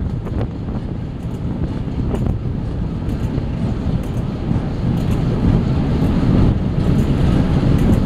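Diesel-hauled heritage passenger train running along the line, heard from an open carriage window: a steady low rumble of the train with wind buffeting the microphone and scattered light clicks from the wheels. The rumble grows a little louder over the second half.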